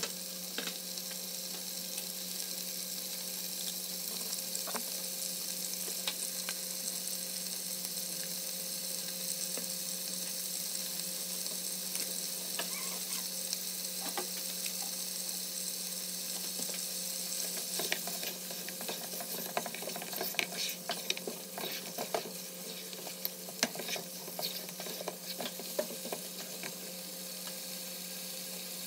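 Mutton pieces and onions sizzling in oil in a pot, with a spatula stirring and scraping against the pot; the clicks and scrapes come thicker in the second half. A steady low hum runs underneath.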